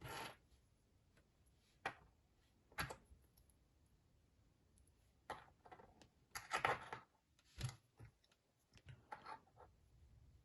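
Faint, scattered clicks and brief rustles of small plastic Lego minifigure parts being handled and set down on a table, a few single ticks and a short cluster of handling noise midway.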